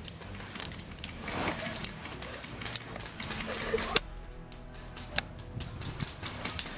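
Airsoft guns firing: a scattering of sharp clicks and pops at irregular intervals, with one louder crack about four seconds in.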